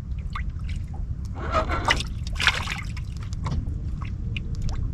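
Water lapping and sloshing against the hull of a small fishing boat, with a stronger splash a little after a second in, over a steady low rumble.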